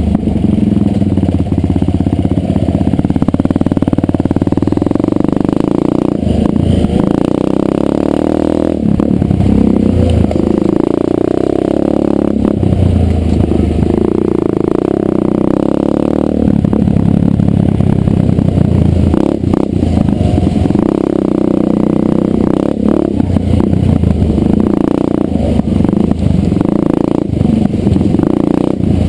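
Dirt bike engine under way on a rough trail, its pitch rising and falling over and over as the throttle opens and closes, with frequent knocks and rattles from the bike jolting over ruts.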